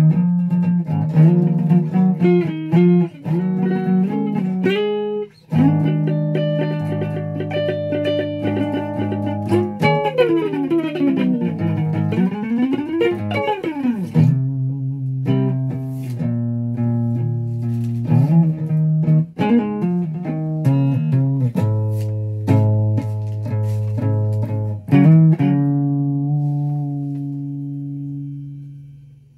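Flying V-style electric guitar being played, chords and single notes ringing one after another. About ten seconds in the notes slide down in pitch and back up, and near the end a last chord rings out and fades away.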